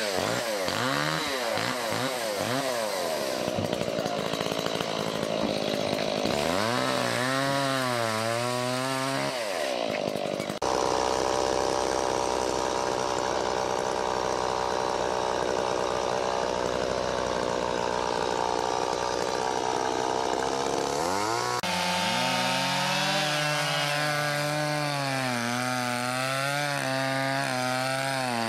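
Petrol chainsaws revving and cutting logs, the engine pitch rising and falling as the saws bite into the wood and free up again. Through the middle stretch the sound turns into a steadier, denser engine noise, then the rising and falling revs return.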